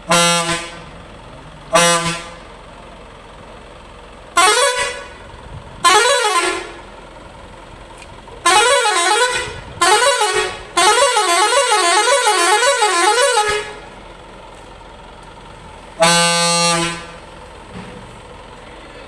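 Minibus air horns sounded in turn: two short steady blasts, two short blasts that slide in pitch, then a warbling horn wavering up and down about twice a second for several seconds, and one last steady blast of about a second.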